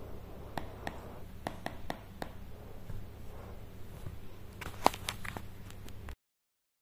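Faint, scattered taps and clicks of a stylus on a tablet screen while handwriting, over a low steady room hum; a sharper click comes about five seconds in, and the sound cuts off to silence shortly after.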